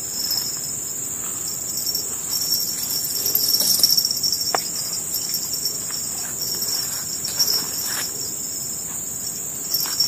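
Steady high-pitched chorus of insects, swelling a little about four seconds in. A few faint clicks and rustles sound over it.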